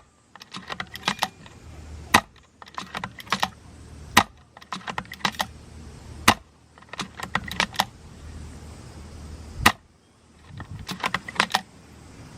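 Tokyo Marui VSR-ONE spring-piston airsoft bolt-action rifle being fired four times, each single sharp shot followed by the quick rattle of the bolt being worked to chamber the next BB. Wind rumbles on the microphone between shots.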